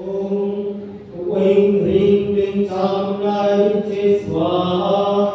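Mantras of a homa fire ritual chanted on a near-steady held pitch, the chanting growing louder about a second in.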